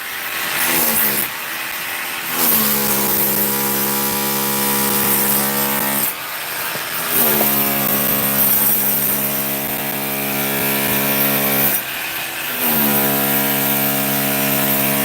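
A power tool's motor run three times for about four seconds each, each run quickly settling into a steady hum, with a rough noisy spell between runs.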